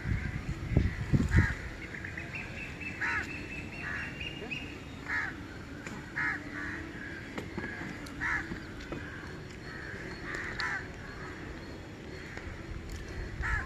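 Crows cawing: short calls repeated every second or two, over a faint steady low hum. A few low thumps about a second in.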